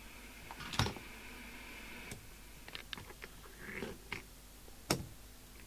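Sharp clicks and knocks of switches and equipment being handled on a radio workbench, the loudest about a second in and again near the end. A faint steady high tone runs through the first two seconds and cuts off suddenly.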